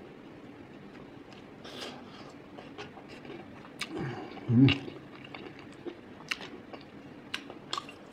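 Eating sounds of a person chewing pork intestine and rice: soft chewing with scattered wet mouth clicks and smacks, and one brief louder, low sound about halfway through.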